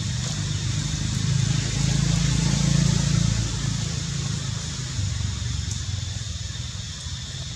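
Outdoor background noise: a low rumble that swells for a couple of seconds and then eases, over a steady high hiss.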